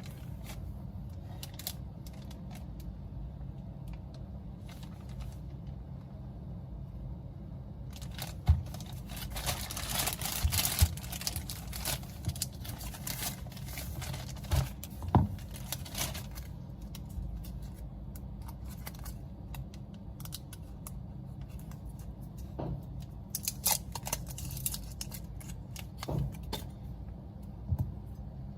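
Small hand tools and phone parts handled on a work surface: scattered clicks and taps, with stretches of rattling and scraping about a third of the way in and again near the end, over a steady low hum.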